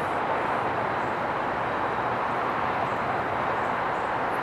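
Steady, even rushing noise of distant vehicles, holding at one level throughout.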